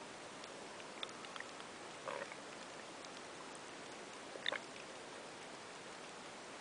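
Underwater ambience picked up by a submerged camera: a steady hiss with scattered faint clicks and a few louder pops, the loudest about four and a half seconds in.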